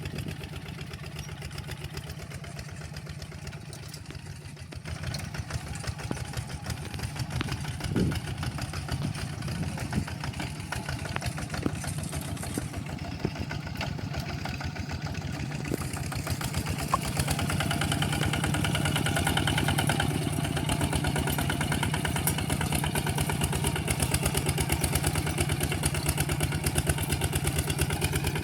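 Walking tractor's engine running steadily with a rapid chugging beat while ploughing, growing louder about two thirds of the way through.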